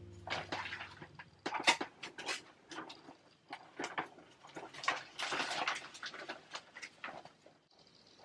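Plastic sheet crinkling and rustling in irregular crackles as it is pulled back off a tub of crushed grapes.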